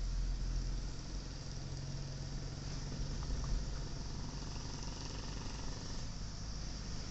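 Car driving along a road, heard from inside the cabin: a steady low engine hum with a wide hiss of road and wind noise.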